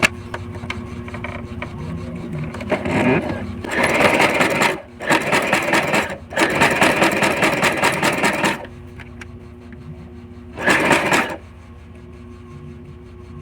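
Portable sewing machine stitching in five short runs with brief stops between them, the longest about two seconds, sewing a long gathering stitch for ruffles.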